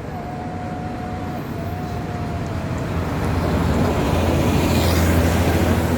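A large bus passing close by, its engine rumble growing louder and peaking about five seconds in. A thin steady tone sounds faintly over the first three seconds.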